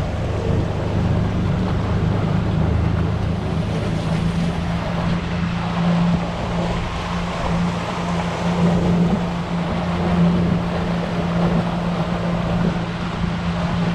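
A tour boat's motor running steadily under way, a low even drone with the rush of water and wind over it.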